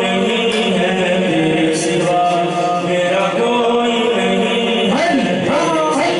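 Male voice chanting devotional verses into a microphone, with long held notes and a few sliding turns near the end.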